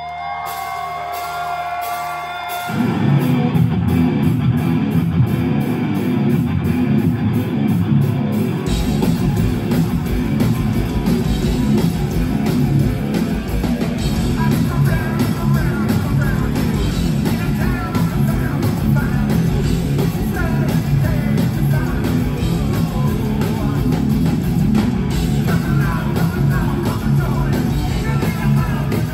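Live hard-rock band playing loud through a venue PA: electric guitar, bass and drums. A quieter held intro gives way to the full band about three seconds in, and a singer comes in partway through.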